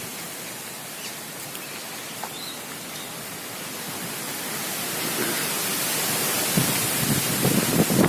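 Steady outdoor rushing hiss that grows louder through the second half, with irregular low thuds coming in near the end.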